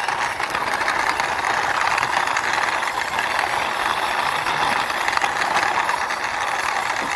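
White plastic toy police car pushed by hand along a rough stone ledge: a steady rattling whir of its wheels rolling over the stone.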